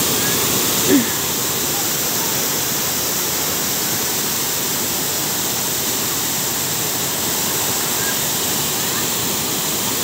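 Waterfall pouring over rock ledges into a pool: a steady, unbroken rush of falling water.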